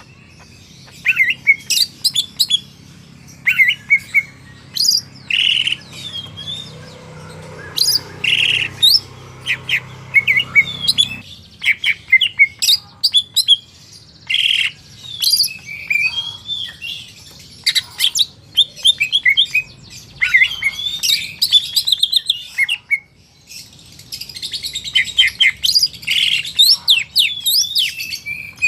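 Green leafbird (cucak ijo) singing: a busy stream of quick chirps and gliding whistles in bursts, with short pauses between.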